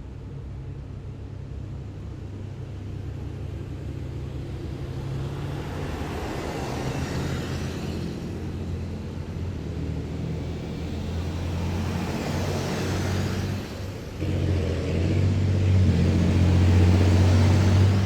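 Heavy military vehicles driving past in a column, their engines making a low, deep hum that grows louder as they come closer. Vehicles pass by at several points, each bringing a swell of road noise, and there is a short dip just before the loudest stretch near the end.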